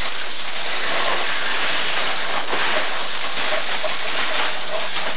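Steady, loud hiss of an old home-video recording, with light rustling of tissue paper being pulled from a gift box.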